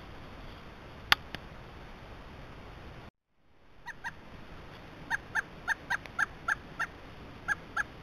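A single sharp click, then a pileated woodpecker calling: a series of about a dozen short, clipped notes at a steady pitch, roughly three a second.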